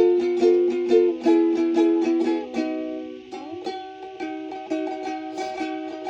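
A small, high-pitched plucked string instrument, ukulele-like, playing a rhythmic tune of picked notes over ringing chords, with one note sliding upward a little past halfway.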